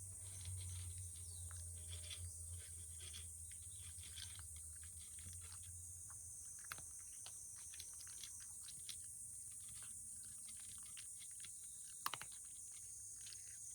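A cat eating from a plate: faint, irregular clicks of chewing, a few a second, with one sharper click about twelve seconds in.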